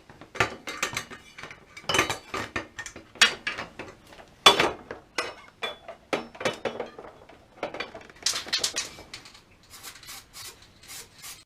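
Welded steel bracket pieces being handled and clamped onto a handcycle frame: an irregular run of metal clinks, knocks and scrapes, a few sharper clanks among them.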